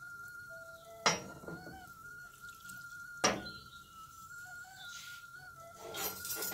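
A wooden spoon knocks twice on the rim of a metal pot of rice, then scrapes and clatters in the pot near the end. Under it runs a faint, steady high whistle from the enamel kettle heating on the wood cookstove.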